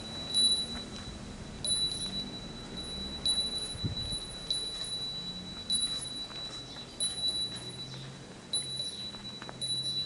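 A small bell ringing one high, clear note, struck again about once or twice a second in a loose, uneven rhythm, with a soft low thump about four seconds in.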